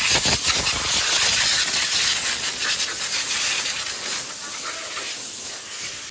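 A cloth rubbing and wiping over the engine bay, irregular scuffs over a steady hiss.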